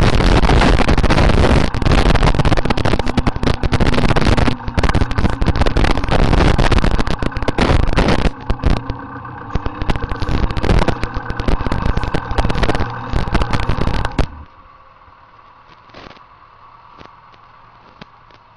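Massey Ferguson tractor engine running as the tractor drives over a rough track, very loud and distorted on the microphone, with choppy dips. About fourteen seconds in it falls away to a much quieter, steady engine hum.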